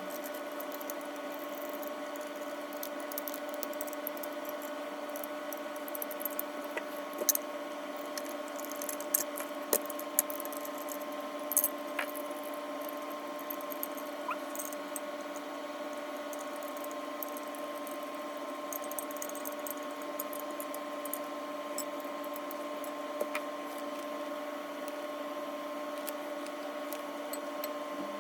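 Scattered light clicks and ticks of parts of a gas-strut monitor mount being handled during unboxing and assembly, over a steady hum of several fixed tones.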